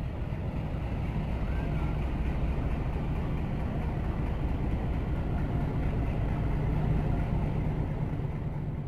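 Engine of a Pakistan Railways PHA-20 diesel-electric locomotive running with a steady low drone as it slowly pulls a passenger train out past the platform, growing a little louder toward the end.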